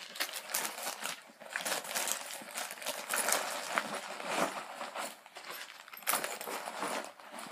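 Rustling and crinkling of items being stuffed back into a backpack pocket, with irregular small clinks and knocks throughout.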